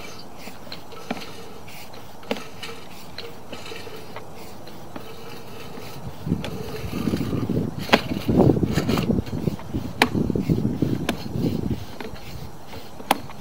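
Sewer inspection camera and its push cable being pulled back out of a drain line, with scattered clicks. About six seconds in, a louder stretch of rumbling and scraping with a few sharp knocks begins and lasts about six seconds.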